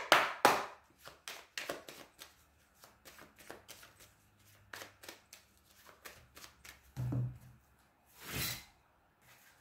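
A deck of oracle cards being shuffled by hand: a quick run of card flicks and slaps, loudest in the first half second, with a longer swish near the end.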